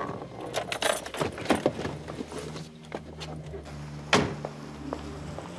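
Small clicks and rattles of handling inside a car, then a car door shutting with one sharp thump about four seconds in, over the low steady hum of the car's idling engine.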